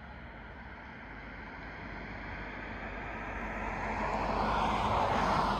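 Propeller aircraft flying past overhead, its engine drone growing steadily louder to a peak near the end, then starting to fade.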